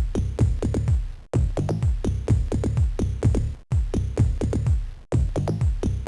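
Electronic techno-style music from a PC demo soundtrack, with a fast drum-machine beat of short hits that each sweep down in pitch. The music cuts out for an instant a few times.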